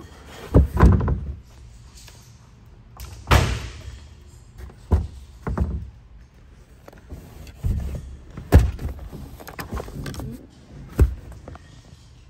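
A hatchback's carpeted boot floor panel being handled and set back down over the spare-wheel well: a series of about eight thumps and knocks, with rustling between them.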